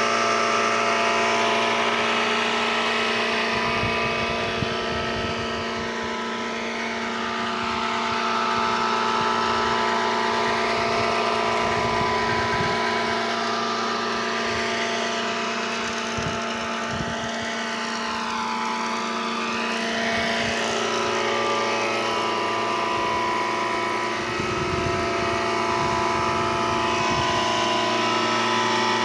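Electric wood planer (jointer) machine running steadily: a constant mechanical hum with several steady whining tones.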